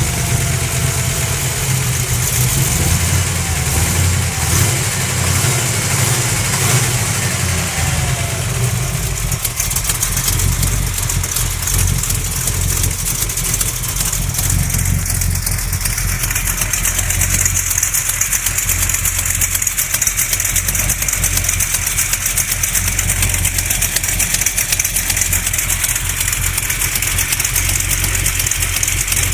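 Small-block Mopar 360 V8 running steadily with a rapid, even tick-knock that grows plainer about ten seconds in. It is not an exhaust leak, and new lifters and new main, cam and rod bearings have not cured it.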